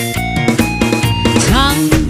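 Upbeat disco dance music played by a live band with keyboards, over a steady beat of about two strokes a second. Near the end, a pitched line slides up into a held note.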